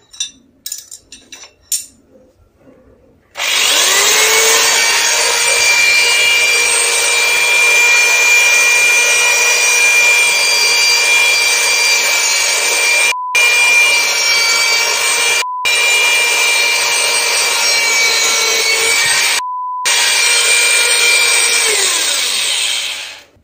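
Corded electric drill spinning a PVC-pipe wheel with a wooden core, mounted on a screw in its chuck, while a flat file is held against the turning wheel and rasps over the motor's whine. The drill speeds up a few seconds in and winds down near the end, and three short beeps briefly break in.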